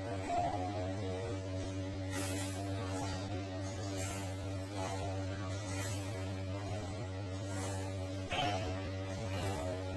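Steady electrical mains hum, a low buzz with a stack of overtones, unchanging throughout, with a couple of faint brief noises about half a second in and again near the end.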